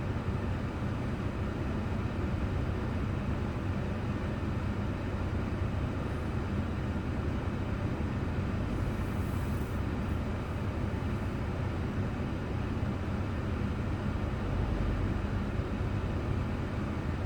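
A car's road and engine noise heard from inside the cabin by a dashcam: a steady low hum and rumble, with a brief high hiss about nine seconds in.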